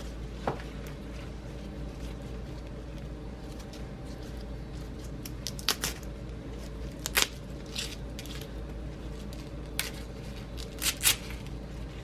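Fresh collard green leaves being handled, giving a few short crisp crinkles and squeaks, scattered and irregular, the sharpest near the end. A steady low hum runs underneath.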